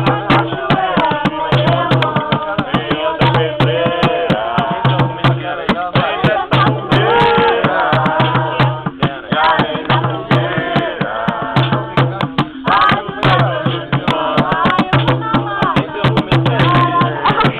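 Voices singing together over fast, dense hand percussion, with a low drum tone recurring in a steady pattern.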